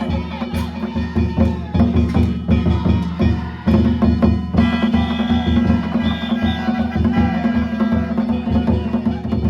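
Danjiri float festival percussion: drums and ringing hand gongs struck in a fast, continuous rhythm, with a brief drop about three and a half seconds in.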